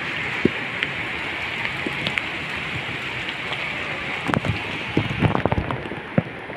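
Heavy typhoon rain falling in a steady hiss, with scattered drops ticking close by and a run of louder, irregular taps about four seconds in.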